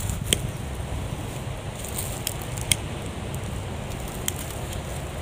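A freshly lit cooking fire of gathered firewood, crackling with about four sharp pops over a steady low rumble.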